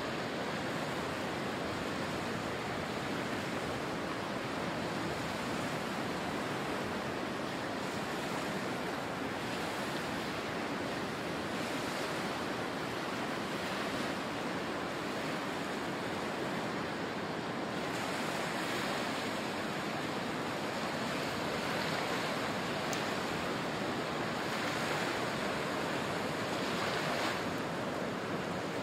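Surf: small waves breaking and washing up a sandy beach, a steady rush of water.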